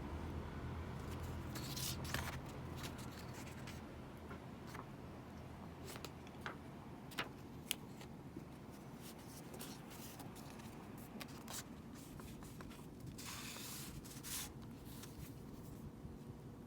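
A K-pop album's packaging and contents being handled: scattered light clicks and taps, and a longer rustle about three-quarters of the way through.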